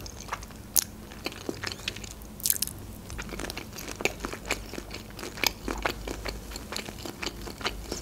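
Close-miked chewing of a mouthful of creamy ribbon pasta: a steady run of wet mouth clicks and smacks, with two louder smacks near the start.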